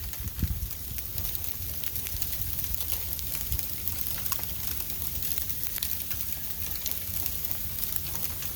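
Snowstorm weather: a steady hiss with many faint ticks of falling precipitation, and wind rumbling on the microphone.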